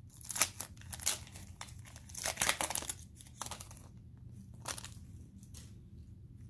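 Foil wrapper of a Panini Mosaic football card pack crinkling and tearing as it is ripped open for about the first three and a half seconds, then a few single rustles.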